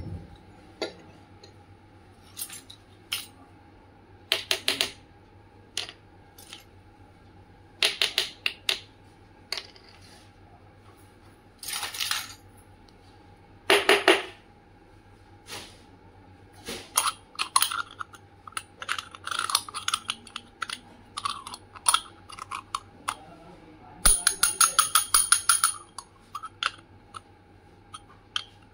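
Miniature stainless-steel toy kitchenware, a tiny pot and a toy pressure cooker with its lid, clinking and clicking as it is handled: scattered short metallic taps, some ringing brightly, with a busier run of clinks a few seconds before the end.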